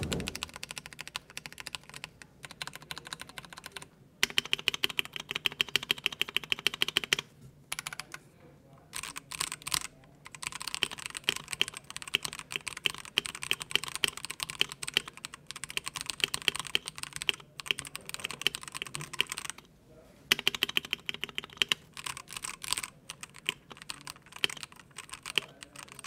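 Two-handed typing on an IROK FE75PRO mechanical keyboard, with stock Cherry red linear switches, ABS keycaps and a dampening foam layer inside. It makes a dense, fast run of key clacks, broken by a few short pauses.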